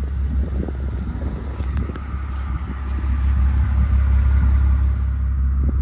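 Mercedes-AMG G65's twin-turbo V12 idling steadily with a deep low hum, growing a little louder midway.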